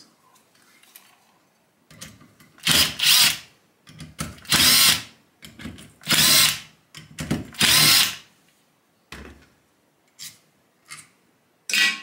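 Power drill-driver running in short bursts, about four runs of under a second each with shorter blips between, undoing the screws of a refrigerator compressor's cylinder housing. A few short knocks follow near the end.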